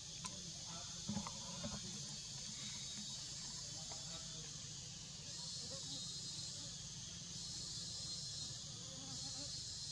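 Steady high-pitched chorus of insects in the surrounding forest, swelling louder about five seconds in, with a few faint clicks in the first two seconds and a low steady rumble underneath.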